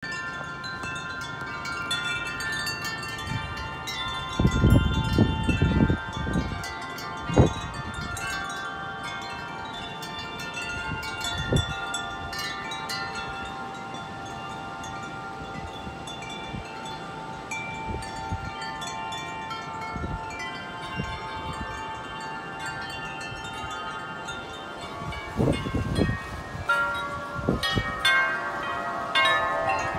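Wind chimes ringing continuously in strong wind, many overlapping tones. Gusts of wind buffet the microphone with low rumbles about four to six seconds in and again near the end.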